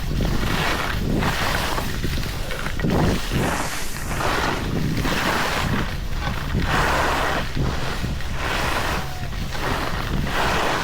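Wind rushing over the microphone of a skier going downhill, with a hiss of skis scraping through turns on hard, icy snow that swells and fades about once a second.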